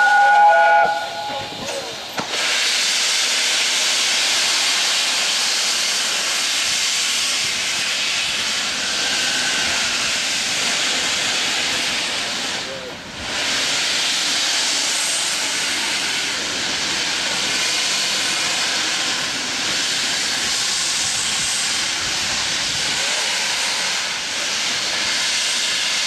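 A brief steam whistle blast from A1 Pacific steam locomotive 60163 Tornado, then a loud, steady hiss of steam venting from its open cylinder drain cocks as it moves off. The hiss dips briefly about halfway through.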